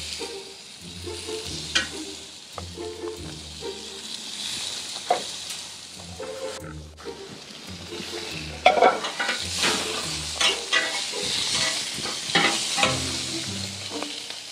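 Raw chicken breasts sizzling as they are laid on the hot enamel-coated cast iron grates of a preheated propane grill, with sharp clicks of metal tongs. The sizzle grows louder about two-thirds of the way through as more pieces go down. Background music runs underneath.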